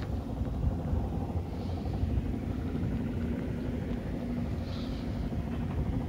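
Wind buffeting the microphone in open desert: a steady, uneven low rumble.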